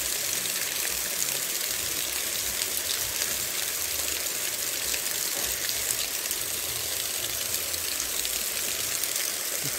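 Water spilling over a small concrete weir and splashing into a shallow stream pool below: a steady rushing.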